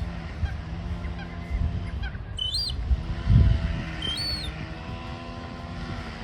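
A seagull giving drawn-out honking calls among ducks, with short high-pitched chirps about two and a half and four seconds in. A low rumble runs underneath, with a thump about three and a half seconds in.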